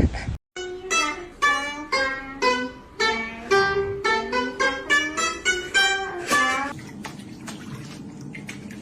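Music: a run of plucked string notes, guitar-like, about two a second for some six seconds, then dying down to a quieter stretch.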